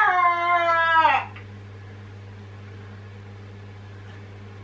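A woman's voice draws out one long note that slides down in pitch and stops about a second in, leaving a steady low hum.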